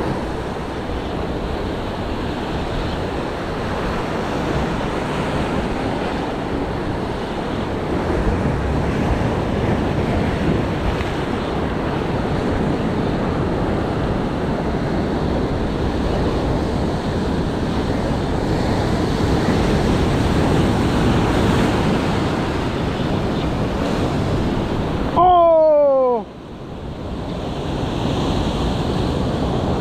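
Surf breaking and washing over rocks in a steady rush, with wind buffeting the microphone. About 25 seconds in, a brief loud cry falls in pitch, lasting about a second.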